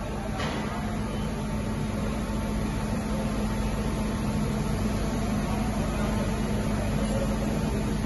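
VDF Boehringer VDF250C CNC lathe running and machining a part behind its closed enclosure window: a steady mechanical hum with a constant low tone under a hiss, growing slowly louder.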